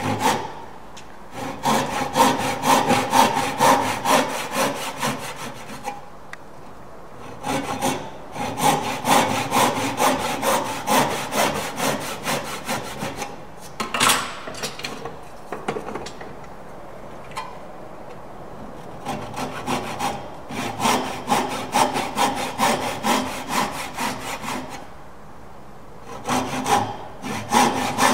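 Tenon saw cutting down into the end of a timber workpiece held in a vice, in runs of quick, even back-and-forth strokes broken by short pauses.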